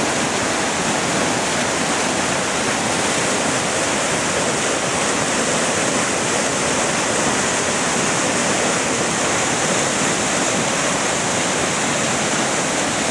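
Muddy floodwater of a stream in spate after heavy thunderstorm rain, rushing and churning in a steady, unbroken loud rush.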